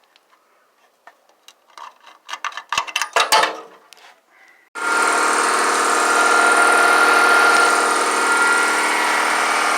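A few clanks and knocks of metal being handled, then about five seconds in a handheld electric power tool starts and runs steadily with a high whine.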